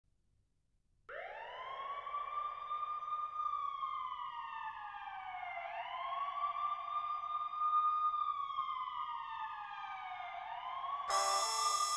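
Wailing siren, starting about a second in. Its pitch rises quickly, holds, then slides slowly down, twice over, used as a sound effect in a film soundtrack. Near the end a bright sustained chord comes in over it.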